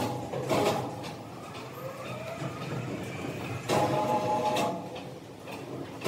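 Sawmill machinery running, uneven in level, with a faint rising tone in the middle and a louder stretch of about a second, carrying several steady tones, near the two-thirds mark.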